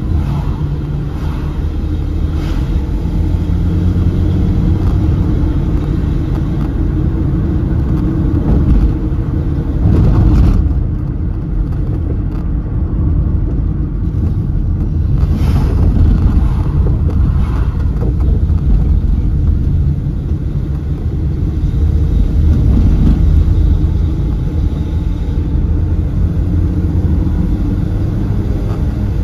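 Road noise heard from inside a moving car: a steady low rumble of engine and tyres. A brief louder swell about ten seconds in, and weaker ones a few seconds later, as oncoming traffic goes by.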